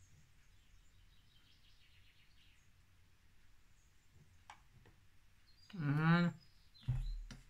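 Quiet room with a light click a little past halfway. Near the end come a short wordless vocal sound from a woman, then a low thump and a second brief vocal sound.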